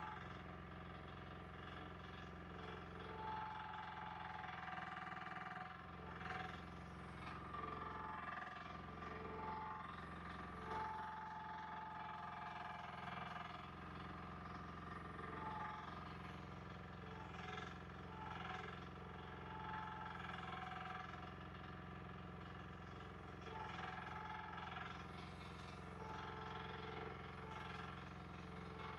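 Engine of a compact earthmoving machine running steadily under work, with a higher whine that comes and goes every few seconds.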